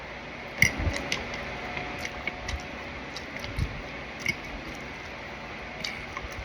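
Chewing on a chicken wing and its bone, with irregular wet mouth clicks and a few soft low thuds.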